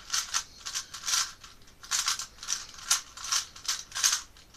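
Plastic clacking of a 3x3 Rubik's-type puzzle cube as its layers are turned by hand: short clicks, about three a second, at an uneven pace.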